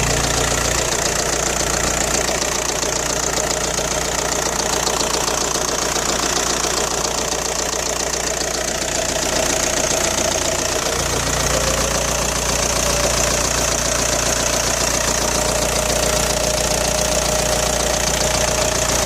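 Audi 1.9 TDI AWX pumpe-düse four-cylinder diesel engine running with a steady rattling clatter. The rattle appeared after the injector o-rings and copper washers were replaced.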